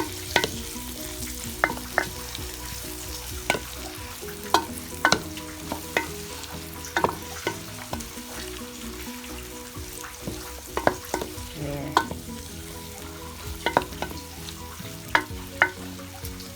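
Garlic, onions and bell pepper sizzling in hot oil in a frying pan while being stirred, with a cooking utensil knocking and scraping against the pan at irregular intervals, about once or twice a second.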